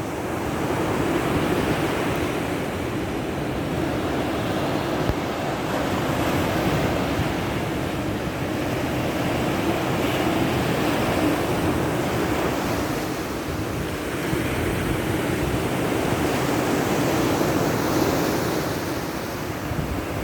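Sea surf: waves washing onto the shore in a continuous rush that swells and eases every few seconds.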